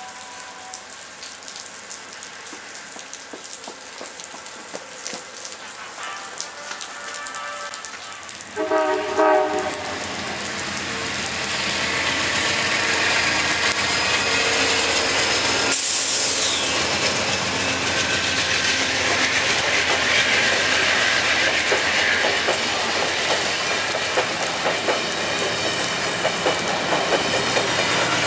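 Amtrak Vermonter passenger train with GE P42DC diesel locomotives approaching and passing close by. It sounds its horn briefly about nine seconds in, then the locomotive and coaches go by loudly with a steady rush of engine and wheel noise.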